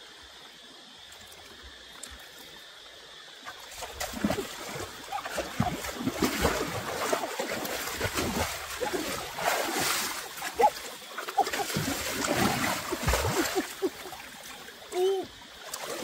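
Shallow stream water splashing hard and irregularly as someone wades and scrabbles through it, plunging their hands in to grab at fish. The splashing begins about four seconds in, after a stretch of faint running water.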